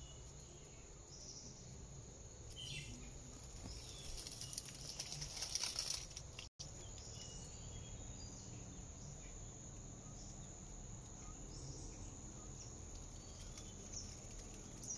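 Faint, steady high-pitched insect drone in forest undergrowth, with scattered short chirps. A brief burst of louder noise comes about five seconds in.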